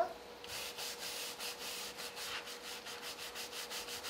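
Stiff bristle brush scrubbed back and forth over a carved, inked woodblock, working the ink into the relief: a quick run of rough rubbing strokes, several a second.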